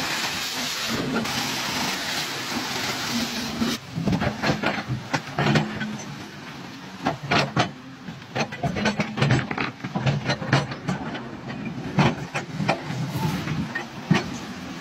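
Volvo crawler excavator's diesel engine running while its bucket shoves a large steel pipe through shallow river water. Rushing, splashing water and a hiss fill the first few seconds, then many sharp knocks of metal and stones come over the engine's steady hum.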